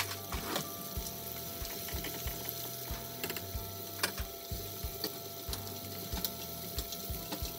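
Chicken deep-frying in a stainless pot of hot oil: steady bubbling with many irregular crackles and pops.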